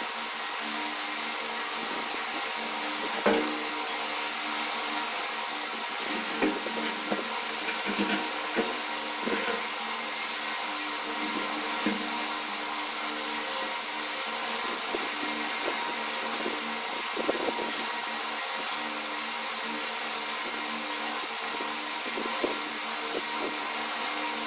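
Ceiling fan running with a steady hum and hiss, with scattered light knocks and taps; the loudest knock comes about three seconds in.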